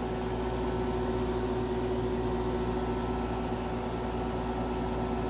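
GE J Series 11,600 BTU wall air conditioner running steadily with its cover off: even fan rush over a constant compressor hum.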